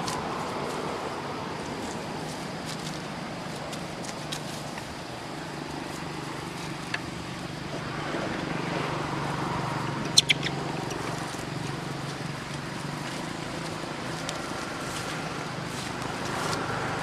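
A motor running steadily as a low hum, with a few sharp clicks, the loudest a quick pair about ten seconds in.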